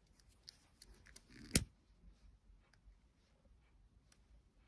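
Quiet hand handling of nylon paracord with faint scattered clicks, and one sharp click about a second and a half in.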